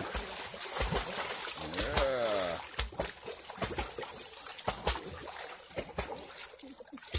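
A dog pawing and biting at the water of a shallow river: a quick, irregular run of splashes and slaps on the surface.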